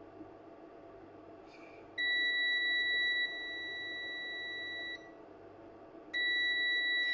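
Multimeter continuity beeper giving a steady high beep for about three seconds, then again from about six seconds in. The beeper sounds because the probes are on a very low-resistance line, a shorted power rail.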